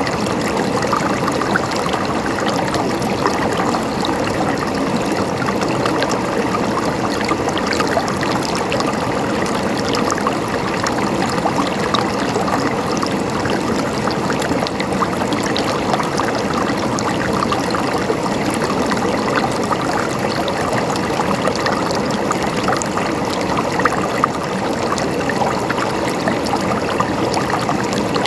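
Water in a stream flowing and gurgling steadily.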